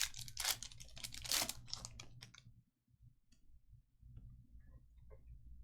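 Trading cards being flipped through and handled: a quick run of crisp clicks and swishes for about two and a half seconds, then a few soft clicks over a steady low hum.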